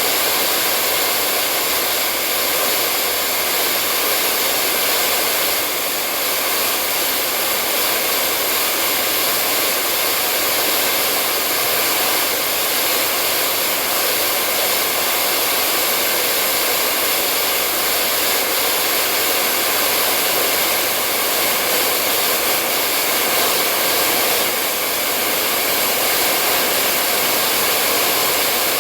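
Hair dryer blowing steadily: an even, unbroken rushing hiss with a faint hum in it.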